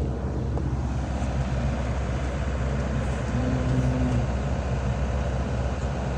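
Heavy machinery running with a steady low engine drone. A brief steady higher tone rises above it a little after three seconds in and stops under a second later.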